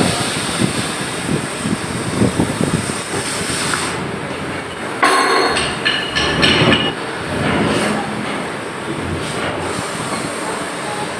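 Chain hoist being hauled: steel chain links rattling and clattering in quick irregular runs, with sharper metal clanks that ring briefly about five and six and a half seconds in.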